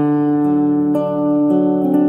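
Acoustic guitar music played back through an open-baffle speaker with full-range drivers, sustained plucked notes changing about every half second to a second.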